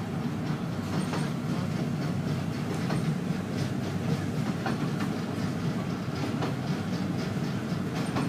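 Passenger train running along the track, heard from inside the carriage: a steady low rumble with light wheel clicks and rattles.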